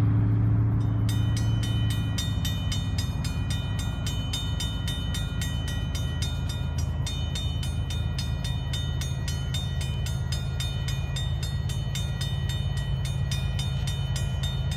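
Railroad crossing bell starts ringing about a second in as the crossing signals activate, a fast, even, repeating ding. Under it runs the low steady rumble of an approaching train.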